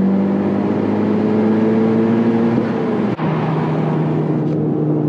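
2020 Honda Civic Si's turbocharged 1.5-litre four-cylinder droning at highway cruise, heard inside the cabin, its pitch creeping slightly upward. About three seconds in the sound breaks off abruptly and carries on at a lower, steady pitch.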